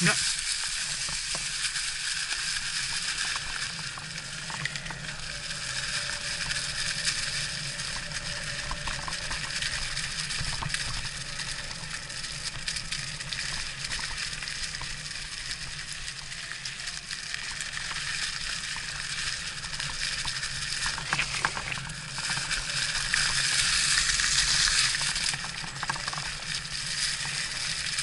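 Electric mountain bike riding over a loose dirt and gravel trail: tyres crunching and hissing steadily, with scattered small clicks and knocks. It swells louder for a couple of seconds near the end, then eases.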